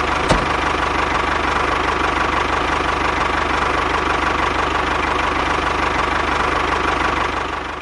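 Tractor engine running steadily with a fast, even chugging beat, fading out near the end. There is a short click about a third of a second in.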